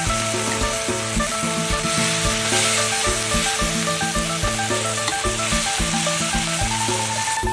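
Mackerel, curry paste and basil leaves sizzling in a metal wok while a spatula stirs them through. Background music plays throughout.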